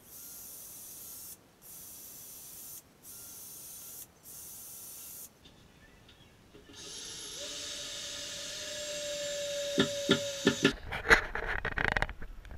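Cordless drill running in four short bursts into timber, then a longer continuous run, followed by a cluster of sharp knocks near the end.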